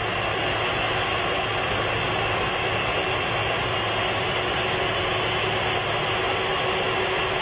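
Boeing 747's jet engines running steadily at taxi power: a continuous rushing noise with high turbine whine tones over it.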